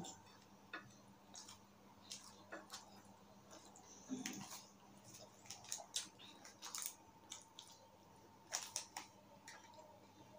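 Close-miked chewing and lip-smacking as a person eats a baked pastry: a scatter of soft, wet mouth clicks, with a short low hum about four seconds in.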